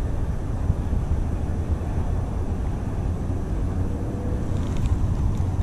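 Steady low rumble of wind buffeting the microphone, flickering unevenly.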